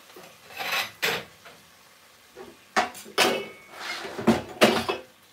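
Ceramic plates being taken out and handled: a series of separate clinks and clattering knocks, the loudest about four and a half seconds in.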